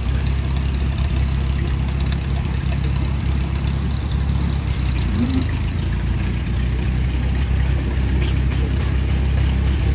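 Engine idling steadily with an even low hum.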